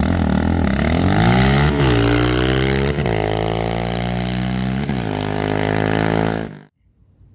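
Yamaha Raptor 700 ATV's single-cylinder four-stroke engine accelerating hard from a standstill, its pitch climbing and dropping back at each upshift, about three times. The sound cuts off abruptly near the end.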